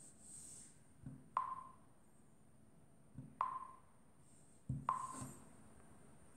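Three short taps, about a second and a half to two seconds apart, each a soft thump followed by a sharp click with a brief ringing tone, made while a smartphone is operated by hand.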